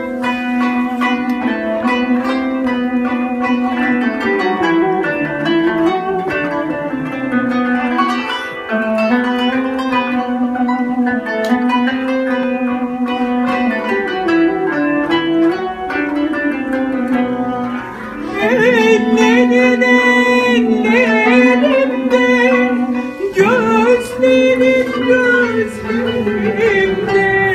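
Instrumental passage of Turkish music: a kanun's quickly plucked strings under the mey's reedy, sustained melody. From about two-thirds of the way in a louder, wavering melody line joins.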